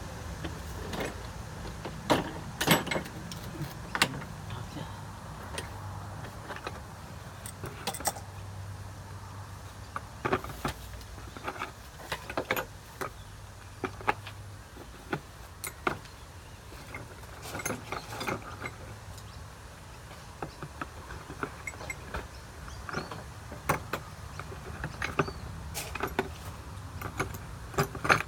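Irregular clicks and knocks of tools and parts being handled during air conditioner installation work, over a low steady hum that cuts off about halfway through.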